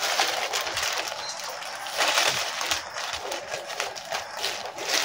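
A parcel's packaging rustling and crinkling as it is opened, in uneven crackly bursts, louder about two seconds in.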